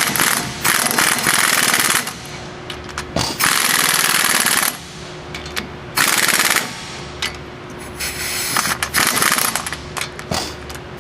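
Impact wrench hammering in several short bursts, separated by brief pauses, as it runs down and tightens the 15 mm wheel hub bolts.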